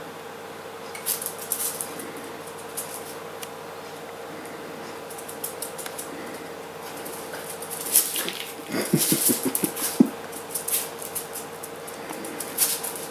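Jack Russell terrier's claws pattering and skittering on a vinyl kitchen floor as it chases a laser pointer dot, in scattered bursts of quick taps, busiest about eight to ten seconds in.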